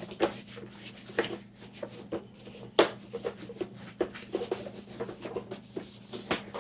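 Wet wipe rubbing over the plastic main-brush housing of a Roborock S5 Max robot vacuum, with scattered small clicks and taps of handled plastic, the sharpest a little under three seconds in.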